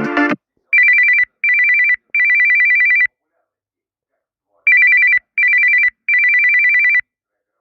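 Samsung Galaxy A72 ringtone in the style of an electronic telephone ring: a rapid warbling trill between two high tones, in three bursts (short, short, long), played twice with a pause between.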